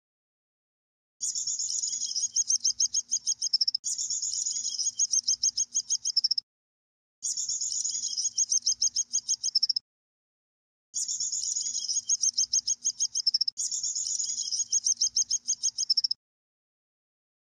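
Electronic bird chirps from a plush toy bird's sound chip: five bursts of rapid, evenly repeated high tweets, each about two and a half seconds long, two pairs running back to back, each cutting off suddenly into silence.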